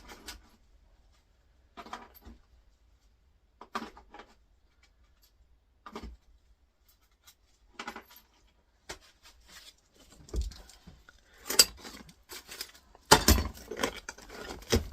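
Small steel screws clinking as they are dropped into a screw bucket: single clinks about every two seconds, then a denser, louder rattle of metal near the end.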